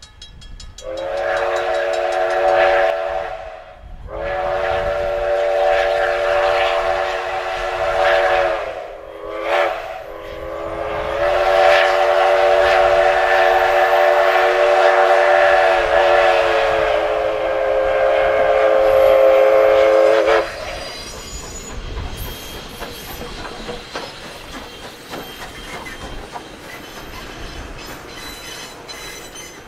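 Strasburg Rail Road No. 89, a 2-6-2 steam locomotive, blowing its chime steam whistle in the grade-crossing signal: two long blasts, a short one and a final long blast, as it approaches the road crossing. From about twenty seconds in, the passenger cars roll past with the clatter of wheels on rail joints.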